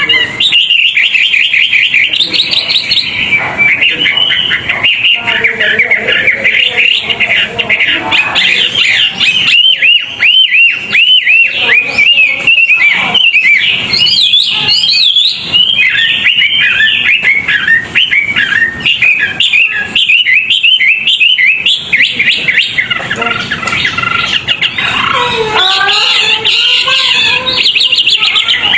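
Songbird singing a fast, unbroken string of sharp chirps and quick trills, loud throughout, with lower chattering notes joining near the end. It is a recorded contest-bird song used to train other birds.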